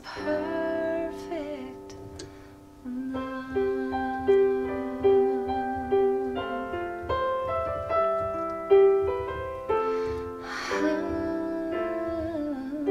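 Music: a piano playing a slow melody of single held notes, with a woman's wavering sung notes at the start and again near the end.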